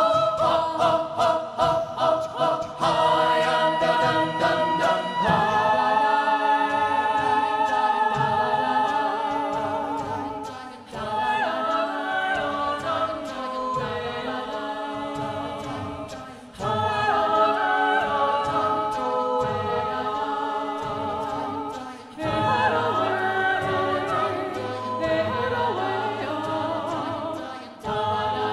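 Unaccompanied SSATB youth choir singing, with a female soloist on a microphone in front. It opens with short, clipped rhythmic chords for about five seconds, then moves into sustained phrases that break off and restart every five or six seconds.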